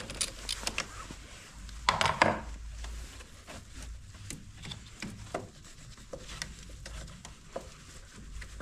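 Scattered clicks and knocks of hand tools and the negative battery cable being handled, with a louder clatter about two seconds in.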